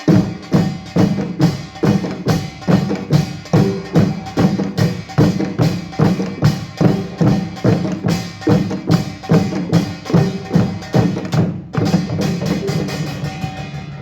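Korean pungmul percussion ensemble playing a fast, driving rhythm with drums and small gongs, about three strong beats a second. The strokes stop about twelve seconds in and the sound rings down.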